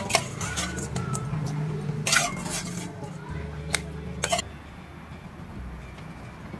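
A stainless steel bowl and utensils clinking and knocking against a wooden mortar as seafood is tipped in, a few separate sharp clinks with a short metallic ring in the first four and a half seconds.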